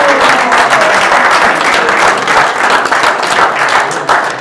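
A roomful of people applauding, dense clapping that eases slightly near the end.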